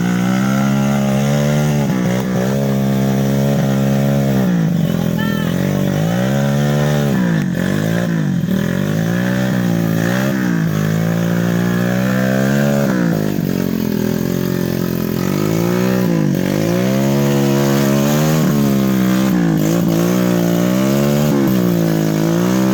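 Off-road vehicle engine revving up and down over and over, its pitch rising and falling every second or two, over a steady low engine drone.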